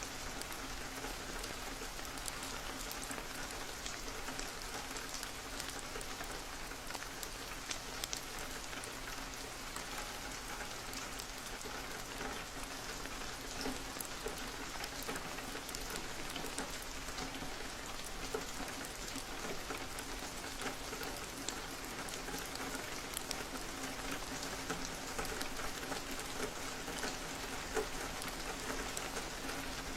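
Steady rain falling on a window, with many separate drops ticking against the glass at irregular times.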